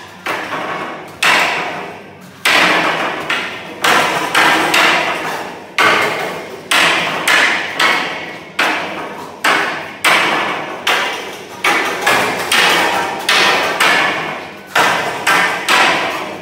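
Wing Chun wooden long pole striking the wooden arms of a dragon pole dummy: sharp wooden knocks about one or two a second, some in quick pairs, each ringing briefly and dying away.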